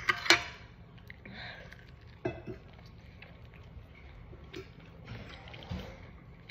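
A metal fork clinking against a plate: a few sharp clinks at the start and one more about two seconds in, then only faint small ticks.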